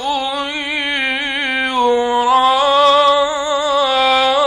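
A male Quran reciter's voice holds one long vowel in melodic tajwid recitation. The pitch ripples in quick small ornaments around a steady centre, then settles.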